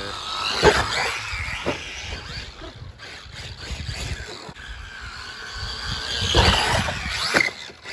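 Electric brushless motor of a 1/10-scale Losi Baja Rey RC truck whining up and down in pitch as it accelerates and slows while driving over grass. It surges louder about half a second in and again around six seconds in.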